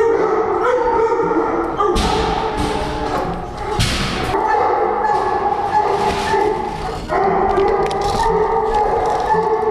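Many kennelled hunting dogs barking, yelping and whining together in a concrete-block kennel hallway, a continuous din, with a couple of sharp thuds about two and four seconds in.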